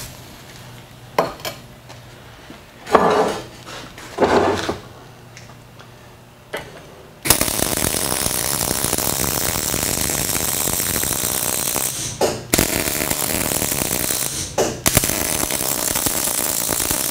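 A few knocks in the first several seconds, then a MIG welder's arc running with a steady, dense crackle for about ten seconds, broken by two short pauses as the bead is stopped and restarted.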